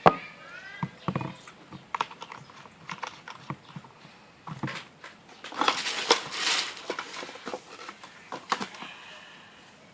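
Clear slime being mixed and handled: irregular sticky clicks and taps, with a longer noisy stretch of squishing a little past halfway.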